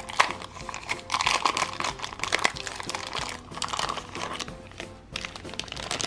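Thin clear plastic toy wrapper crinkling as it is torn open by hand, with a short lull about five seconds in, over background music.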